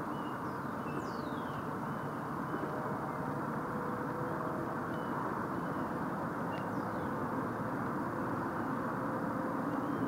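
Steady outdoor background hum and hiss, with faint high chirps and a few falling whistles from small birds now and then.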